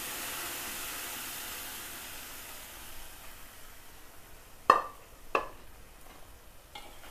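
Hot tempering oil with dried red chillies and curry leaves sizzling as cooked mung dal is poured onto it in an aluminium pot, loud at first and dying down over about three seconds. Later come two sharp metal clinks, the loudest sounds, and a fainter one near the end.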